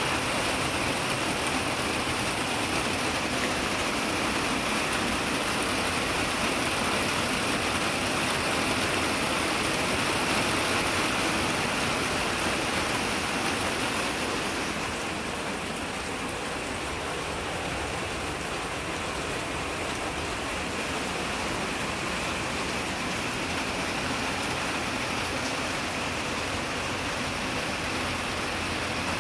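Rain falling on a greenhouse's clear corrugated plastic panels, a steady hiss that eases slightly about halfway through.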